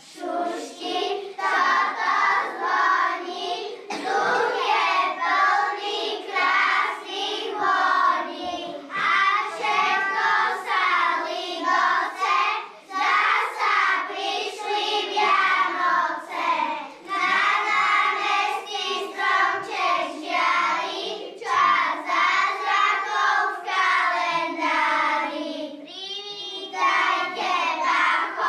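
A group of young kindergarten children singing together in unison.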